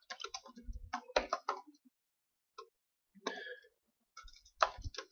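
Typing on a computer keyboard: quick runs of key clicks, with a pause of about a second and a half midway before the typing resumes.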